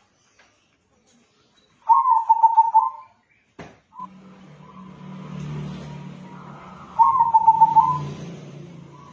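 Local crossbred zebra dove (perkutut) cooing: two phrases of rapid, pulsed coos, one about two seconds in and one about seven seconds in, each lasting about a second. A single click comes between them, and a low hum runs underneath from about four seconds in.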